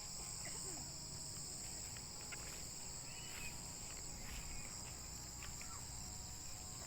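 Steady high-pitched insect chorus, with a few faint short chirps here and there.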